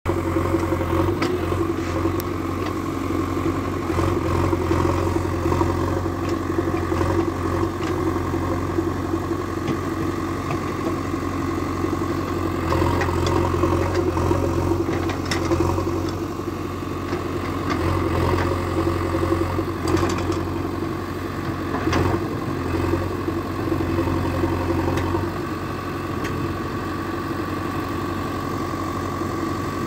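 JCB Xpert backhoe loader's diesel engine running steadily as the backhoe arm digs earth, its pitch easing and rising a little with the work. Scattered short knocks and clatter come from the digging.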